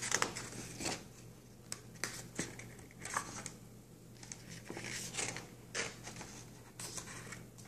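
Paper rustling and crinkling in short, irregular bursts as the pages of a book are handled and turned.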